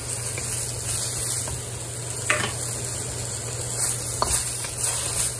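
Sponge gourd and Chinese yam slices sizzling in a hot wok as a wooden spatula stirs and tosses them, with a few sharper knocks of the spatula against the wok.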